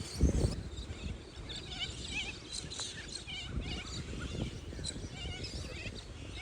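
Wind buffeting the microphone, with a strong gust just after the start, while birds call over it in short, wavering chirps.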